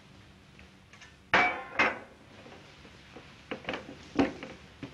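Kitchen dishes and pans clattering: about six sharp knocks and clinks, the loudest a little over a second in.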